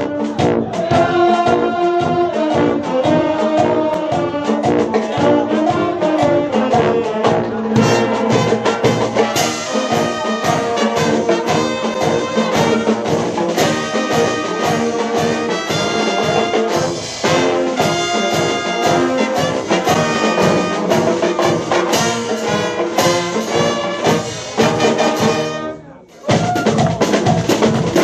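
Live Dutch street brass band (dweilorkest) playing: trumpets, trombones, saxophones and a sousaphone over a steady beat on bass drum and snare drums. Near the end the music stops for a moment, then starts again.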